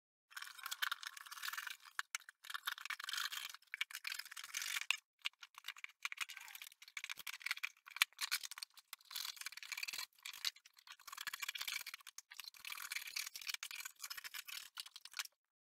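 Scissors cutting through corrugated cardboard: a dry, rasping crunch in irregular runs of strokes with short pauses between them.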